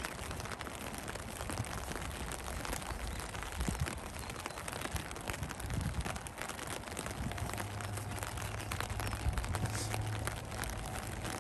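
Steady rain falling: a hiss full of small drop ticks, with a low rumble underneath. A low steady hum joins in for about three seconds past the middle.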